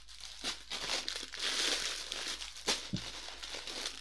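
Plastic bags full of Lego pieces crinkling as they are picked up and shuffled across a table, with a few sharper clicks.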